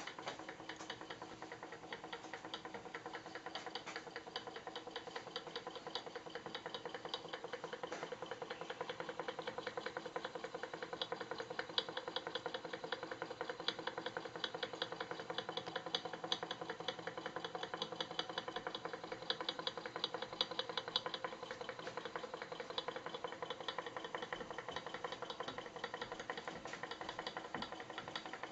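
Small model hot air engine running steadily, its moving parts making a fast, even mechanical ticking.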